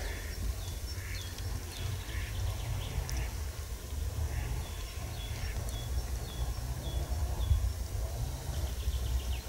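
Wind rumbling on the microphone, with a bird repeating a short, high note about twice a second.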